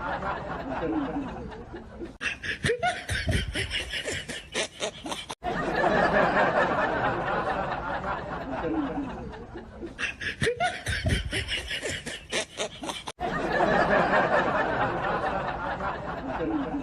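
Wet fart sound, a rapid crackly sputter with a low rumble lasting about three seconds, heard twice, with snickering and laughter.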